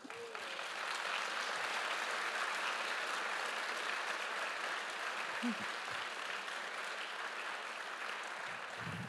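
Audience applauding, starting right away, holding steady and easing off slightly towards the end.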